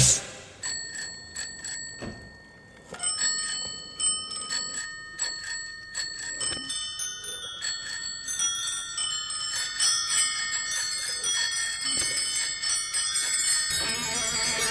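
Bell-like music: single ringing strikes at first, then more and more overlapping chimes building up, with a fuller band sound coming in near the end.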